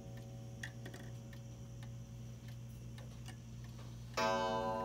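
Antique Lenzkirch Black Forest wall clock ticking faintly while its minute hand is turned up to the hour. About four seconds in, the clock strikes once, a loud ringing note that dies away slowly.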